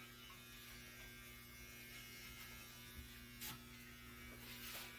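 Faint steady electrical hum with a low buzz, and two brief soft noisy brushes or snips near the end.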